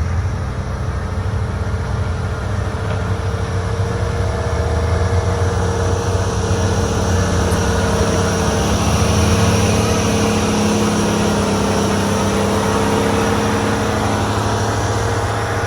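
Heavy diesel engine of a motor grader running steadily at work, a continuous low drone that swells a little midway.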